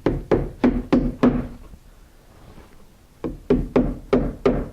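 Hammer driving nails through felt flashing: a quick run of about five blows, a pause of about two seconds, then another run of about five blows, roughly three a second.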